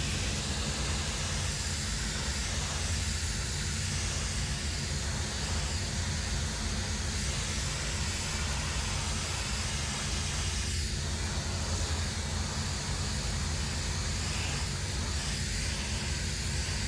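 Steam-cleaning pressure lance spraying a hot jet of water and steam onto a stone garden ornament, a steady hiss with a constant low hum underneath.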